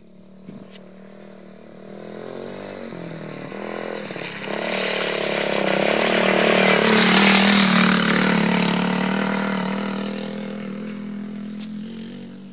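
Quad bike engine running at a steady pitch as it rides along a muddy track. It grows louder as it approaches, passes close about seven or eight seconds in, then fades as it rides away.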